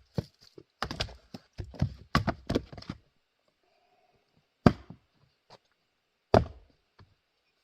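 A small Adirondack Jersey-pattern single-bit axe working grand fir: a quick run of wooden knocks and clatter, then two hard single axe strikes into the wood about a second and a half apart.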